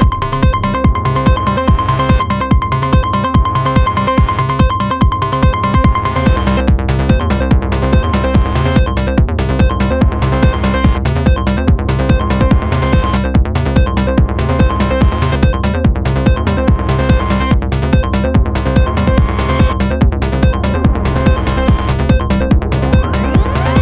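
Electronic techno music from Moog synthesizers and a Roland TR-09 drum machine: a steady drum-machine beat with ticking hi-hats under a held high synth tone. About six seconds in, a heavier synth bass line comes in and the high tone breaks into short repeated notes.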